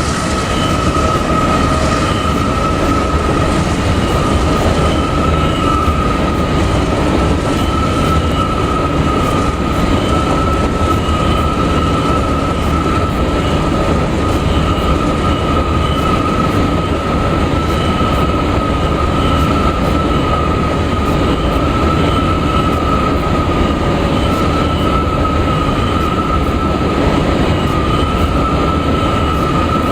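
Coal train cars rolling past, a steady rumble with a continuous high-pitched squeal held throughout.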